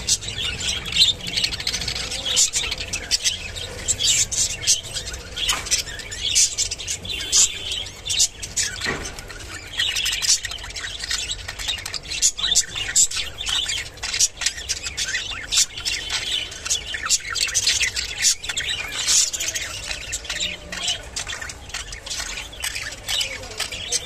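Budgerigars chirping and chattering without pause, a busy run of short high squawks and tweets.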